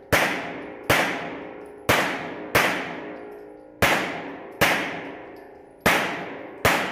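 Hudson H9 9mm pistol firing a string of eight shots at a steady pace, under a second apart, each shot echoing and ringing off the walls of an indoor concrete range.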